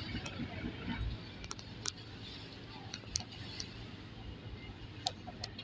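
Steady low machinery hum of ships in port, with scattered light clicks over it.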